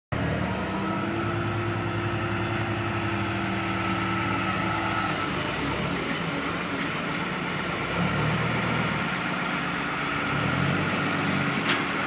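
Hyundai wheel loader's diesel engine running: a steady idle at first, then uneven with swells of load as the hydraulics raise, curl and lower the boom and quick coupler. A single sharp click near the end.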